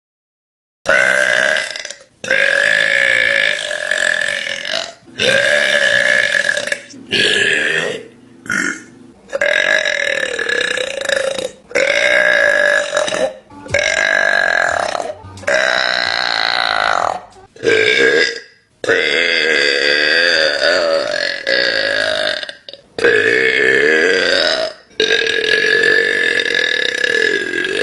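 A woman burping: a run of about a dozen long, loud burps, each lasting one to a few seconds with short breaks between, starting about a second in.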